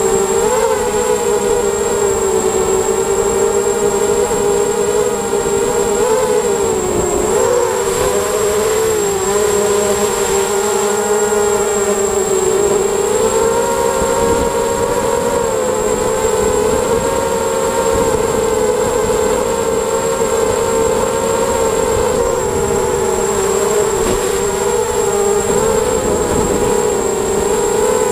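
ZMR250 mini H-quad's four brushless motors and propellers whining in flight, heard from the onboard camera. The pitch wavers up and down as the throttle changes, over a steady high-pitched whistle.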